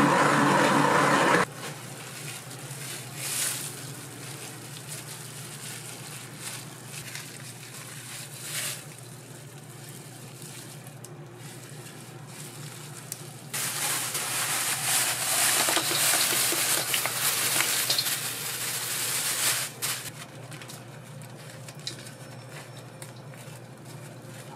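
Restaurant kitchen work sounds: a loud rush that cuts off just over a second in, then a steady low hum with a few short clatters, and a loud hiss lasting about six seconds from a little past halfway.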